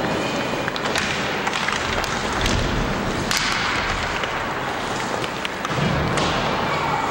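Ice hockey play on an indoor rink: a steady hiss of skates on the ice with scattered sharp clacks and knocks of sticks and puck.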